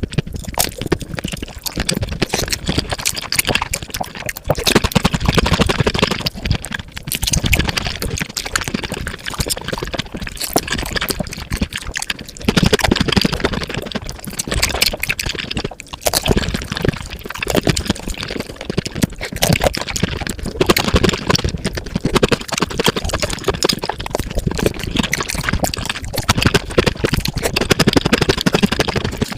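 Close-miked eating sounds sped up about fivefold: a dense, rapid stream of wet chewing, smacking and slurping clicks.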